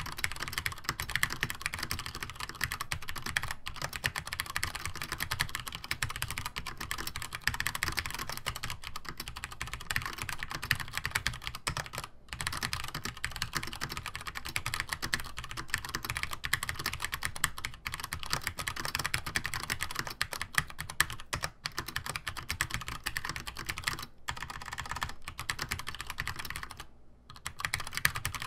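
Continuous typing on a Compaq G80-1838HPU, a Cherry G80-1800 keyboard with vintage PCB-mounted Cherry MX Brown tactile switches and Cherry doubleshot keycaps. It makes a dense, fast run of key clacks that breaks off briefly a few times, longest near the end.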